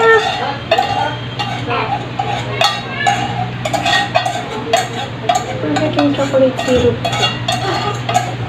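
A utensil scraping and tapping against the inside of a pot as thick chocolate syrup is scraped out, in a run of short, irregular scrapes and clicks, over a steady low hum.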